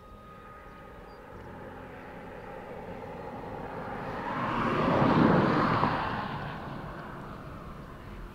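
A vehicle passing by: a rush of noise that swells slowly, peaks about five seconds in and fades away.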